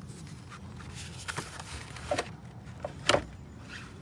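A car battery being set down into its tray in the engine bay: a few light knocks of the plastic battery case against the tray and surrounding parts, the loudest about three seconds in.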